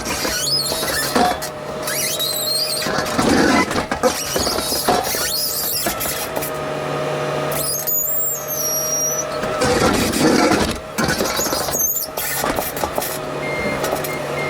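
An engine running steadily, with sharp high-pitched squeals at times, about 8 and 12 seconds in.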